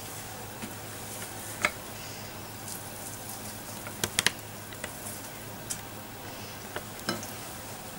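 Quiet handling of pieces of cooked chicken as they are laid onto toast, with a few small clicks and taps; three quick clicks about four seconds in.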